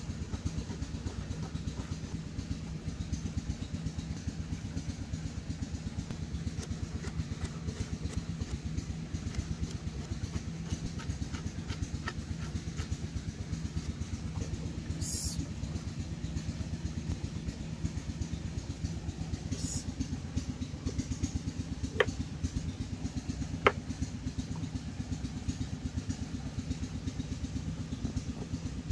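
Steady low drone of an idling engine running throughout, with faint knife taps on a wooden cutting board. Two sharper clicks come close together a little over three-quarters of the way through.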